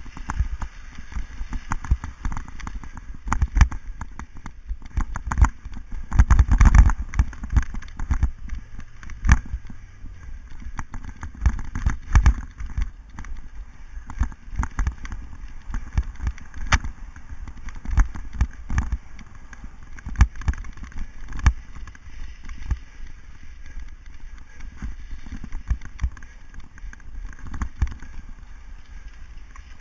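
Cyclocross bike rattling and knocking as it is ridden over bumpy, leaf-covered grass, picked up from on the bike itself. The knocks come irregularly and often, with a heavy cluster of jolts about six seconds in.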